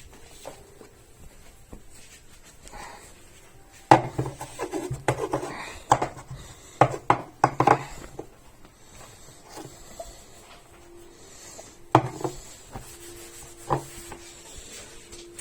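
Clatter of objects being handled on a counter: a quick run of knocks, clinks and rubbing between about four and eight seconds in, then two single knocks near the end.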